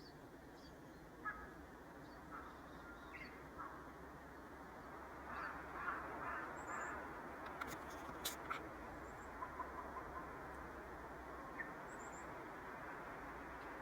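Faint sounds of a pet varied tit: a few tiny, very high chirps and, about eight seconds in, a quick run of sharp clicks, over a steady low hiss.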